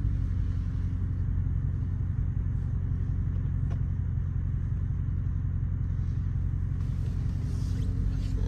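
Straight-piped Dodge Charger R/T's HEMI V8 running steadily, an even deep rumble heard from inside the cabin.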